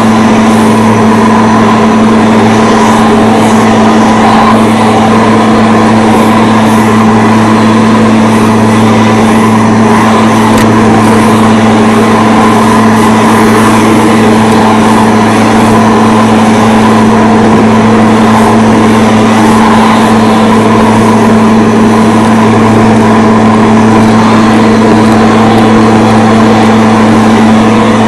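Lawn mower engine running steadily at a constant speed, a loud, even hum with no change in pitch.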